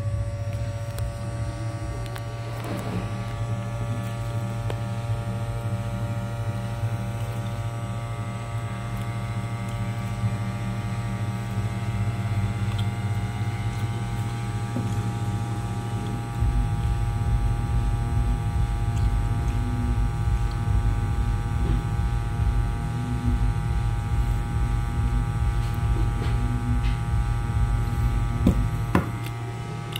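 Hot air gun's blower fan running with a steady, many-toned hum. About halfway through, a deeper rumble comes in and it gets louder.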